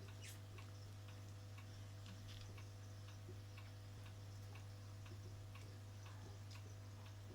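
Steady low hum, with faint light clicks or ticks scattered irregularly through it, about two or three a second.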